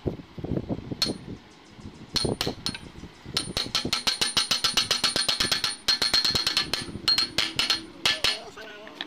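Rapid light metal-on-metal tapping with a ringing tone, about eight strikes a second. A few scattered taps come first, then a long dense run with a brief pause in the middle, during diesel engine repair work.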